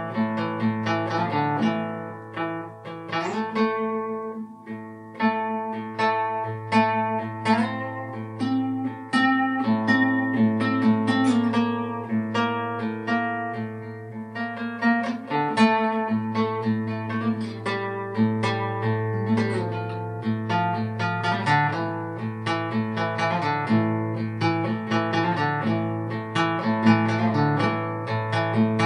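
Instrumental guitar music: a continuous run of plucked notes over a mostly held low bass note.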